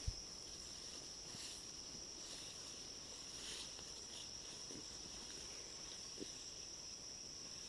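Insects chirring in one steady, unbroken high-pitched tone, faint, with a small tick about six seconds in.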